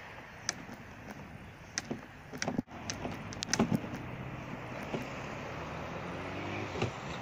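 Knocks and rattles from a sailing sea kayak and its gear as it is wheeled along on a cart, over a steady rushing noise. A low hum comes in near the end.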